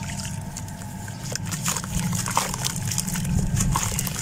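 Hands crumbling a lump of dried mud into a bucket of water: crunching and crackling with small splashes, the crackles coming thicker in the second half, over a steady low rumble.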